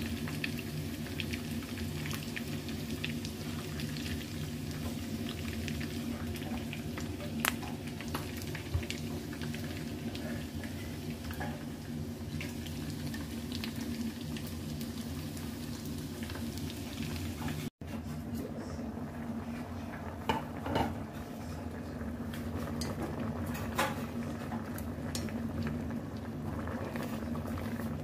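Chicken pieces frying in oil in a pan, with a steady crackling sizzle over a low hum. About two-thirds of the way through, this gives way to a pot of bok choy simmering in broth, with a few light clinks of chopsticks against the stainless pot.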